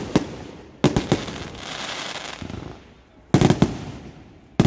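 Fireworks going off in quick clusters of sharp cracks: one bang at the start, a cluster about a second in followed by a hiss, another cluster about three and a half seconds in, and more bangs at the very end.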